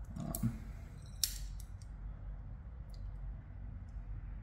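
A few sharp metallic clicks from a hand brake line bender being handled and set on the line, the loudest a little over a second in, over a low steady hum.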